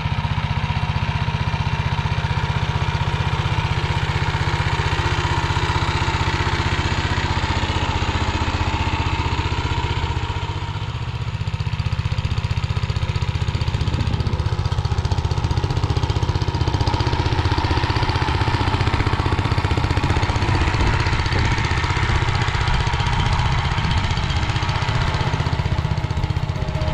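Motor Sich walk-behind tractor's engine running steadily under load as it pulls a plow through the soil, with a brief dip in loudness about ten seconds in.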